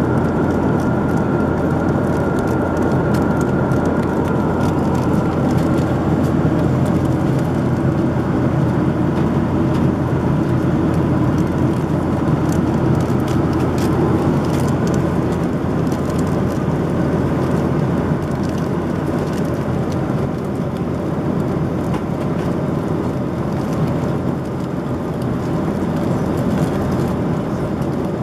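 Steady rushing noise of air and engines inside a Boeing 737-800's passenger cabin in flight, with a faint high whine that fades out in the first few seconds.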